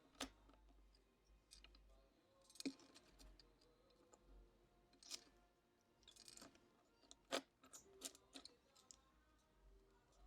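Faint, scattered clicks and taps of small hand tools against the iPhone's internal parts and screws during reassembly, about half a dozen over the span, the loudest two about a third and three quarters of the way through.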